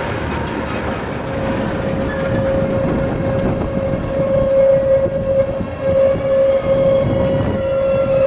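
Added sound effect of an electric tram running along the track: a low rumble with a steady high whine that grows louder about three seconds in.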